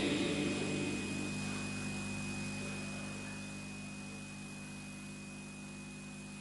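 Reverberant voices fading out over the first second or so, leaving a steady electrical hum from the sound system with a thin, steady high whine and light hiss.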